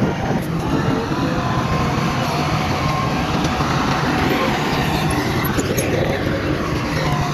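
Heavy diesel earthmoving machinery running steadily under load, a low engine drone with some faint squealing tones above it.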